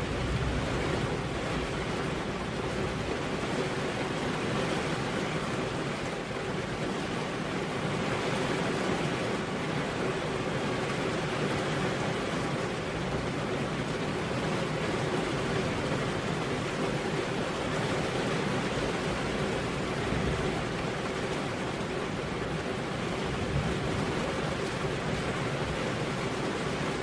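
Heavy rain falling steadily on a road, an even hiss of water with no thunder.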